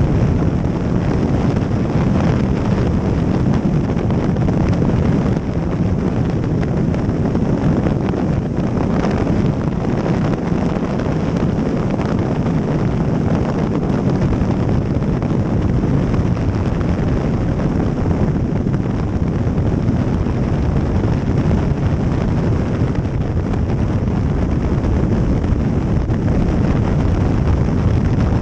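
Steady wind rush on the bike-mounted microphone over the running engine of a Kawasaki touring motorcycle cruising at road speed.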